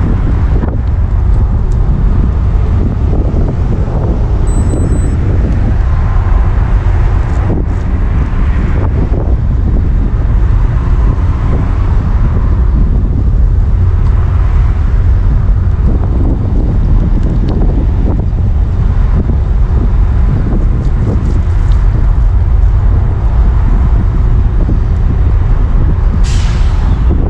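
Heavy, steady wind rumble on the microphone of a moving ride, with road and vehicle noise beneath it. A brief hiss comes near the end.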